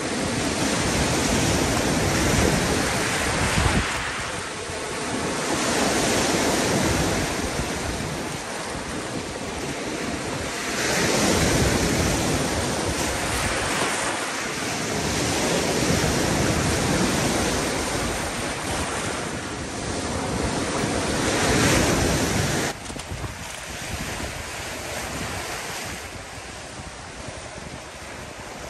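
Lake waves breaking and washing over a rocky cobble shore, surging and ebbing every few seconds. Near the end the surf becomes quieter and steadier.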